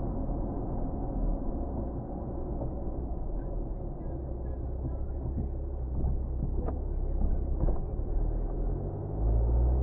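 Vehicle interior driving noise: a steady low engine and road rumble with a droning hum, and a couple of brief knocks. Near the end the engine note rises and grows louder as the vehicle speeds up.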